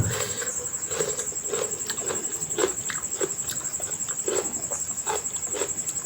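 Close-up mouth sounds of someone eating rice and curry: wet chewing and lip smacking at about two chews a second, with a low thump right at the start.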